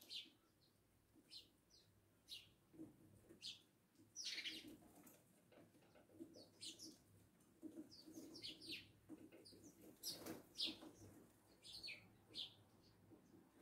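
House sparrows chattering: a flock's short, irregular chirps, one longer and stronger call about four seconds in.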